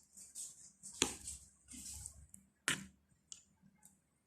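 Glue slime being stirred in a container, making sticky wet clicks and squelches, with two sharper clicks about a second in and near three seconds.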